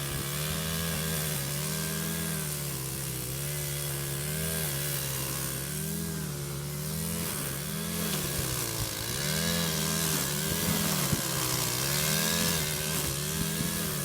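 An engine running steadily, its pitch rising and falling in a regular cycle every second or two.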